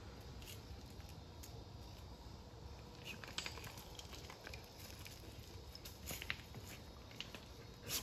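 Faint outdoor ambience: a low, steady rumble with scattered light clicks and crackles, a few a little louder about three seconds in and again about six seconds in.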